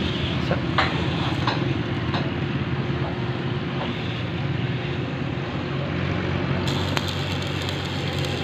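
Arc welding: a steady low machine hum under a dense crackling hiss, with a few sharp clicks in the first two seconds.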